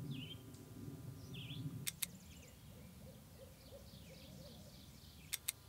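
Faint outdoor ambience with birds calling: short high chirps in the first two seconds, then a run of quick, low warbling notes in the second half. Three pairs of sharp clicks come about every three and a half seconds, and a low rumble fades out about two seconds in.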